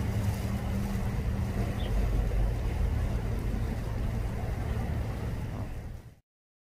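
Steady low rumble with a faint hum, cutting off suddenly just after six seconds.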